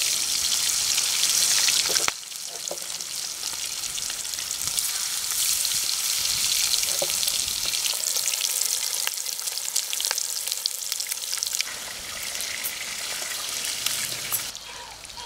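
Masala-coated needlefish deep-frying in hot sesame oil: a dense sizzle full of crackles and pops. It is loudest for the first two seconds, just as the fish goes into the hot oil, then settles to a steady sizzle, and it drops down near the end.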